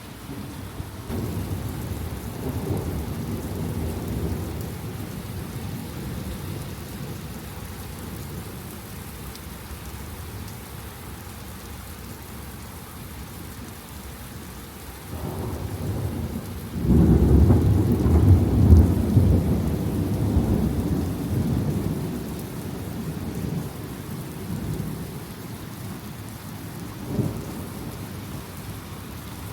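Thunder rumbling over steady rain. One roll starts about a second in, and a louder, longer roll comes about halfway through and fades over several seconds, with a brief burst near the end.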